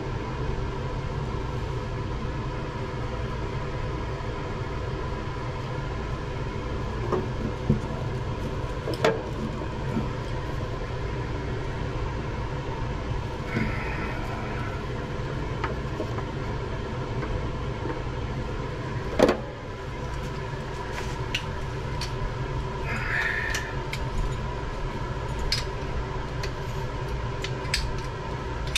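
A steady low hum with faint steady tones, broken by scattered knocks and clicks of work being done by hand, the loudest knock about nineteen seconds in and lighter ticks near the end.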